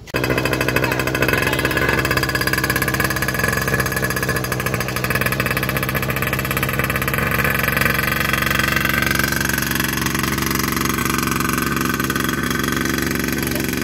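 Small 49cc two-stroke pocket bike engine running steadily, starting abruptly at full level.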